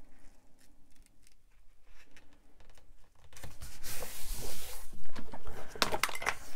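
Hands pressing and rubbing a layered paper panel down onto a cardstock card base: a dry paper-on-paper rubbing hiss for about a second and a half midway, then a few sharp taps near the end.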